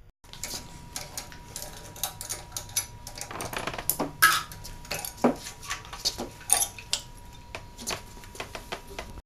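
Irregular metallic clinks and knocks as a cast-iron MerCruiser exhaust elbow is unbolted and lifted off the exhaust manifold, with the sharpest knocks about four to five seconds in.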